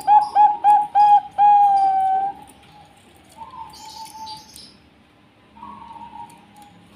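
Zebra dove (Bangkok-bred perkutut) singing: a run of short, hooked cooing notes, about three a second, closing with one long, slightly falling note. Then two fainter, shorter coos follow.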